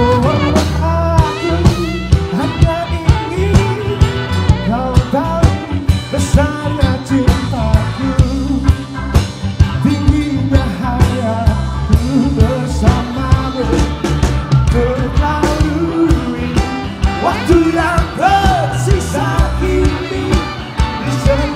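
Live band music: a pop-rock band playing with a steady drum beat and bass, loud and continuous.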